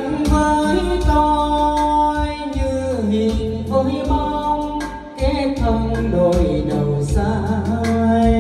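A Vietnamese song with singing, played loud through a home karaoke sound system's speakers, with strong bass under long held notes.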